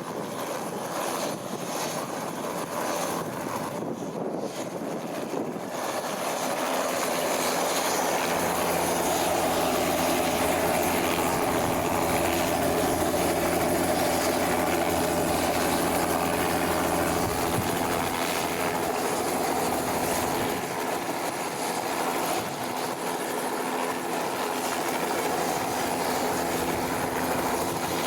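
Cessna 172's four-cylinder piston engine and propeller running, heard from inside the cabin; about six seconds in the engine note grows louder and steadier and holds there.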